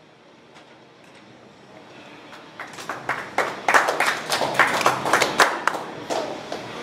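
A small group of people clapping for a bench press attempt. It starts about two and a half seconds in, is loudest in the middle and dies down near the end.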